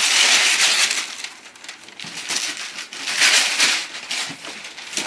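Wrapping paper being torn and crumpled off a present, in bursts that are loudest in the first second and again around three seconds in.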